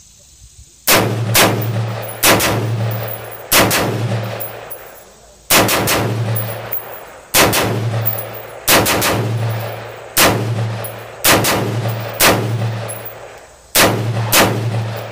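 Custom-built AR-15 rifle fired semi-automatically: about fifteen sharp shots, spaced roughly a second apart with some in quick pairs. Each shot is followed by a long ringing echo that dies away.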